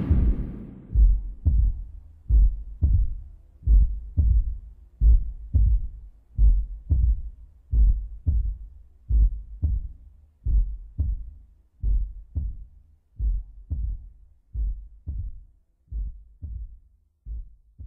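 A heartbeat sound effect: paired low thumps, a lub-dub about every 1.4 seconds, slowly growing quieter. The tail of loud music fades out in the first second.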